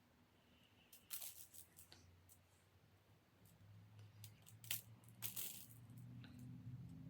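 A rainbow slinky being handled, its coils clicking and rattling against each other in a few short, scattered clatters.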